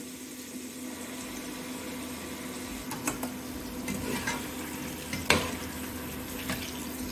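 Potato wedges deep-frying in hot oil in a pot, a steady sizzle. A slotted spoon stirring them knocks against the pot a few times in the second half, loudest about five seconds in.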